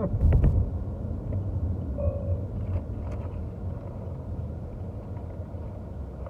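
Steady low rumble of a car's engine and road noise heard inside the cabin while driving, with a couple of sharp clicks just after the start.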